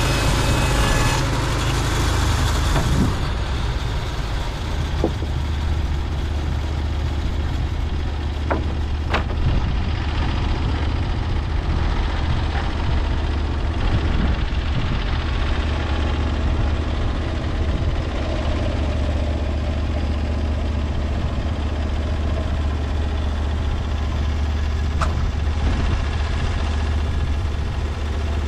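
Portable bandsaw mill's gasoline engine running steadily. Its note changes in the first few seconds, then holds a low, even hum, with a few sharp knocks or clicks along the way.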